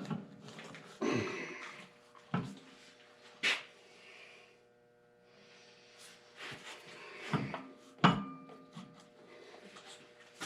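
Clunks, knocks and scrapes of a heavy belt power take-off unit being handled at a Farmall M tractor, with a quieter stretch in the middle and a faint steady hum underneath.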